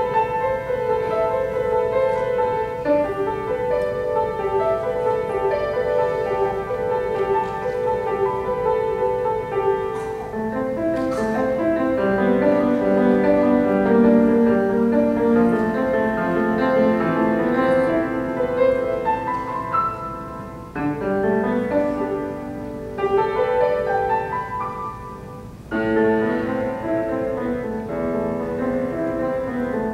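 Solo grand piano played live: a simple RCM level 1 student piece of melody over plain accompaniment. The notes move lower in the middle, with two short breaks in the playing near the end.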